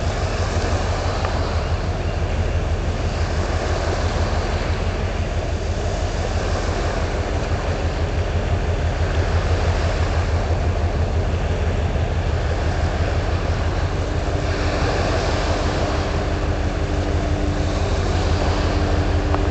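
Deep, steady engine rumble from a large ship under way, pulsing rapidly and evenly, over a wash of wind and water noise. About three-quarters of the way through, a steady two-note hum joins it.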